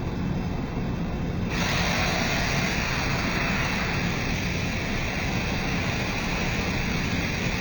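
Matsuura MC-510V Tiger vertical machining center running with a steady low hum. About a second and a half in, a loud, steady hiss switches on abruptly and holds.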